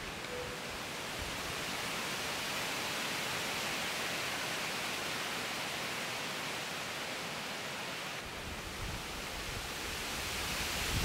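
Wind blowing through the forest trees: a steady, even rush with a slight dip about eight seconds in.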